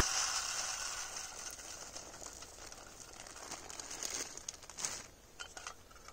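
Plastic bag crinkling as seed is poured from it into a wire-mesh tube bird feeder, followed by a few light clicks and rustles near the end as the feeder's lid is fitted.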